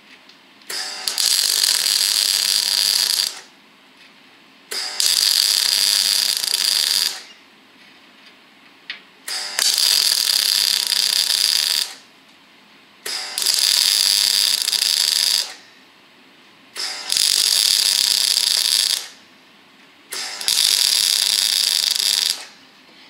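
MIG welder arcing on steel in six runs of about two seconds each, with pauses of a second or two between: stitch-welding a new steel outrigger to a car chassis.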